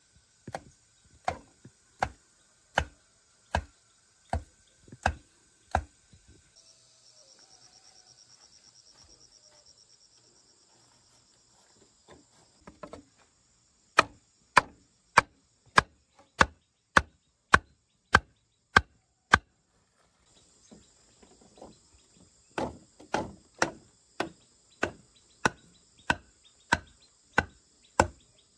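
A wooden club pounding a bamboo stake into the ground, sharp knocks at a steady pace of about one and a half a second. They stop for several seconds in the middle, then resume and quicken slightly near the end.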